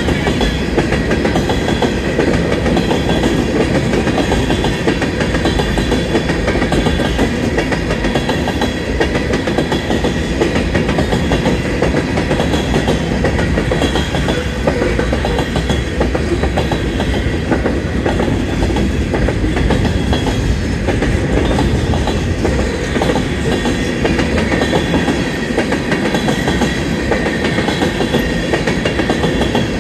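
Freight cars of a Union Pacific manifest train rolling past at steady speed: a continuous rumble of steel wheels on rail with clickety-clack over the rail joints.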